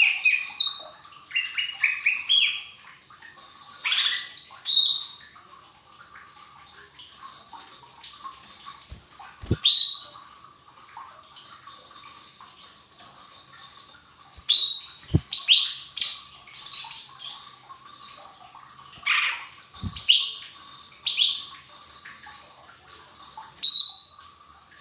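Cucak ijo mini leafbird singing in bursts of quick chirps and whistles, separated by pauses of a few seconds. A faint steady hum runs underneath, and there are a few soft low knocks.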